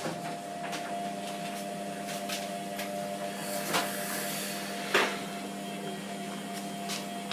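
Hotpoint Aquarius WMF720P washing machine running a wash with its drum full of heavy suds from too much detergent: a steady motor hum that starts at once, with a few faint clicks and knocks.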